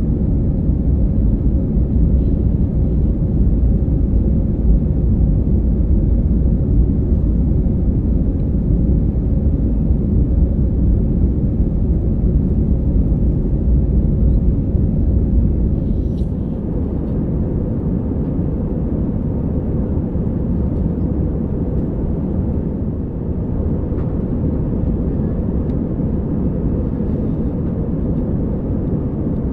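Cabin noise of an Airbus A319-112 climbing, heard from a seat over the wing: the steady deep rumble of its CFM56 turbofans and the airflow, with a faint steady hum in it. About sixteen seconds in, the rumble eases a little and settles slightly quieter.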